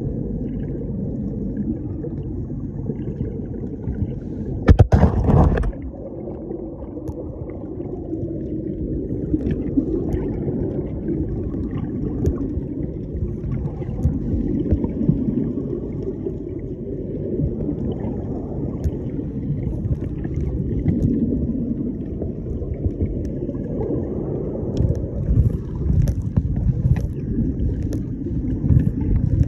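Wind rumbling on the microphone over small waves lapping and splashing in shallow sea water. There is a loud knock or bump on the microphone about five seconds in, and small splashes near the end.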